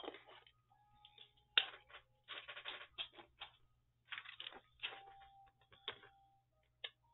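Paper strips being handled and shuffled on a cutting mat: a run of faint rustles and light taps, with a sharper click about one and a half seconds in.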